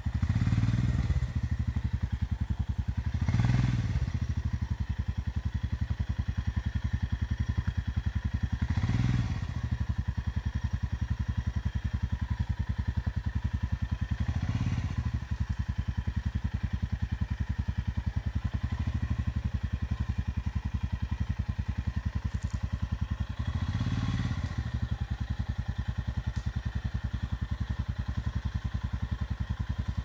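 Royal Enfield Himalayan's 411 cc single-cylinder engine running at low revs, the throttle opened briefly several times, each opening swelling the sound for a second or so.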